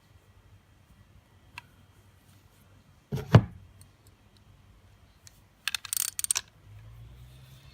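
Metal hand tools and wheelbarrow parts being handled: a faint click, then a single heavy knock about three seconds in, and a short metallic clatter about six seconds in. A low steady hum starts near the end.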